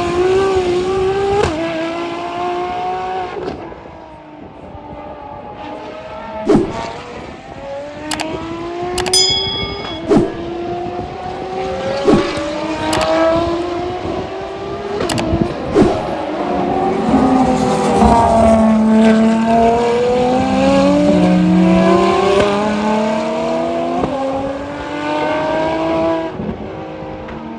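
Ferrari track cars' engines accelerating hard through the gears, the pitch climbing and dropping back at each upshift, with sharp exhaust cracks at several of the shifts. In the second half a second engine overlaps, one climbing while another falls away.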